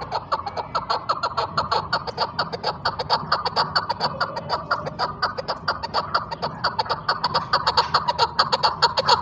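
A female chukar partridge giving its rapid clucking call: a fast, even run of short 'chuk' notes, several a second, growing louder toward the end.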